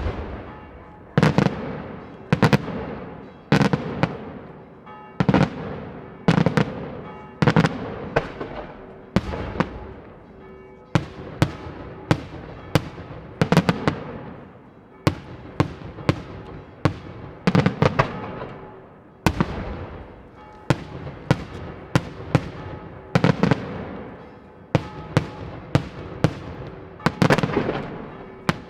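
Daytime fireworks display: a rapid series of loud aerial shell bangs, about one a second, each followed by a rolling echo that dies away.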